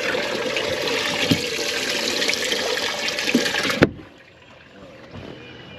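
Steady rushing, splashing water that stops suddenly about four seconds in, ending with a sharp click.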